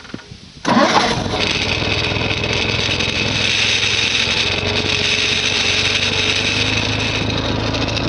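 Gehl 4400 skid steer engine starting up about a second in, then running steadily.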